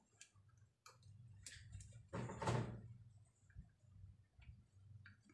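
Faint scattered ticks and light taps from handling a compression driver's metal diaphragm assembly during soldering, with a brief soft rush of noise about two seconds in, over a steady low hum.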